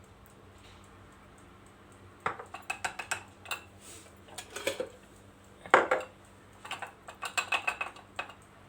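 A spoon clinking and scraping against a glass jar as spoonfuls of grated turnip are measured in: a run of sharp clinks starting about two seconds in, one much louder than the rest near the middle.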